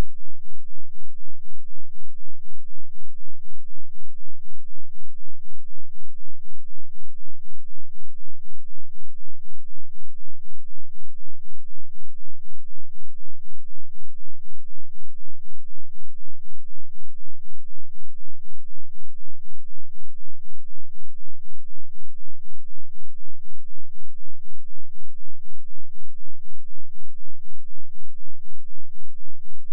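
A 2 Hz sine-wave bass test tone, heard as a loud, even, rapid pulsing in the deepest bass that never changes.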